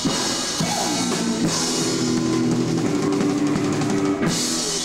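Rock band playing live: drum kit with crashing cymbals under sustained electric guitar chords, loud and steady.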